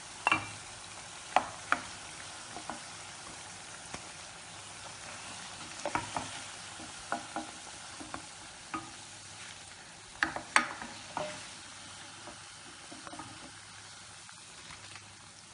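Koftas deep-frying in hot oil with a steady sizzle, while a spatula knocks and scrapes against the pan a dozen or so times as they are lifted out.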